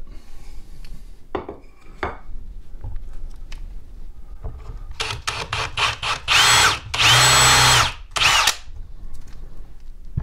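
A Ridgid cordless drill with a combination pilot-and-countersink bit drills into a wooden cleat board. There are a few light handling knocks first. About five seconds in come several quick trigger blips, then two longer runs of the motor's whine as the bit bores and countersinks the hole, and one last short blip near the end.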